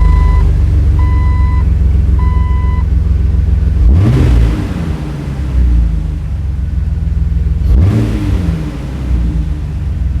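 2004 Jeep Wrangler TJ engine breathing through a newly fitted S&B cold air intake, idling just after start-up and blipped twice, once about four seconds in and again near eight seconds, the pitch rising and falling back each time; it sounds pretty gnarly. A dashboard warning chime beeps three times in the first few seconds.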